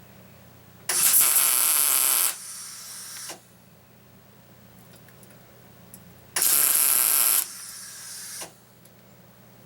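Two short bursts of electric arc welding, each a loud steady hiss for about a second and a half that drops to a quieter hiss for about a second before stopping: welds fixing a sleeve into the centre of a circular saw blade. A low steady hum runs underneath.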